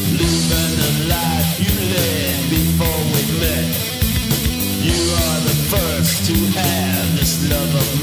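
Background rock music with guitar and a steady, fast drum beat.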